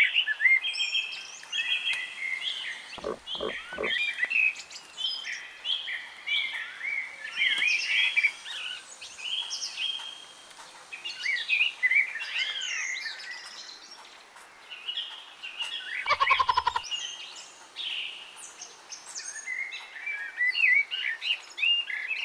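Many birds chirping and calling at once, with quick overlapping chirps that rise and fall. Twice, about three seconds in and again near sixteen seconds, a lower pulsing call cuts in for about a second.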